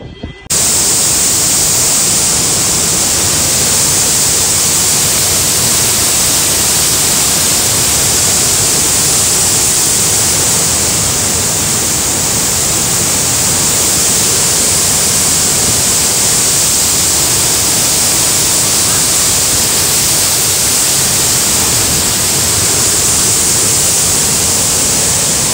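Steady, loud rushing of fast-flowing floodwater, starting abruptly about half a second in and holding level without a break.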